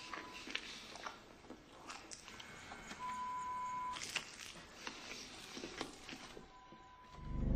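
Faint scattered clicks and crackles, with a steady high electronic beep lasting about a second near the middle. A low rumble swells up at the very end.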